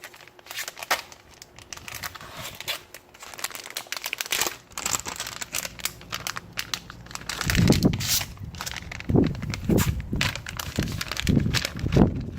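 Plastic packaging crinkling and tearing as a parts package is opened by hand. In the second half, several dull thumps from the package being handled.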